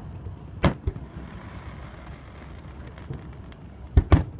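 Aerial fireworks shells bursting: a sharp boom about half a second in with a smaller one just after, then two louder booms close together near the end, over a steady low background noise.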